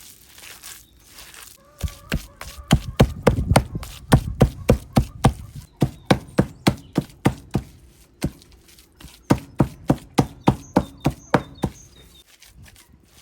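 A run of sharp, evenly spaced knocks, about three a second, starting about two seconds in, breaking off briefly in the middle and stopping shortly before the end.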